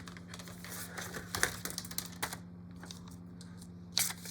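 Irregular light clicks and taps of plastic marker pens being handled, with the sharpest ones about a second and a half in and a close pair near the end, over a steady low hum.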